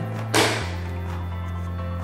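Background music with steady held notes, and about half a second in a single sharp click as a plastic toy gate piece is pressed into the playset's base.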